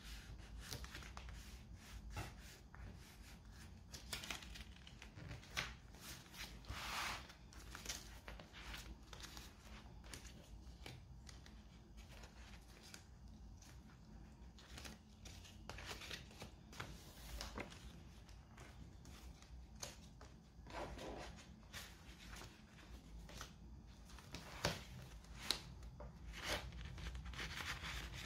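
Faint paper rustling and crinkling as the pages, tags and inserts of a handmade paper journal are handled and pulled out, with scattered soft taps and rubs.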